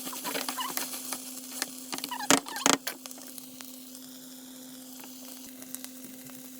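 A utensil stirring and scraping food in a sizzling frying pan, with two loud knocks against the pan about two and a half seconds in. The pan then sizzles steadily on its own.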